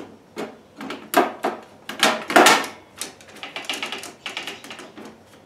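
Clear plastic blade guard and anti-kickback assembly of a WEN 3720 table saw being worked loose from its mount: an irregular series of plastic and metal clacks and rattles, loudest about two seconds in, as the stubborn guard resists coming out.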